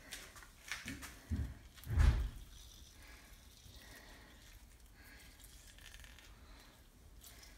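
A few soft knocks and handling bumps in the first couple of seconds, the loudest a low thump about two seconds in, as a plastic hand-held lemon squeezer is handled over a plastic mixing bowl. After that there is only faint room tone while the lime is pressed.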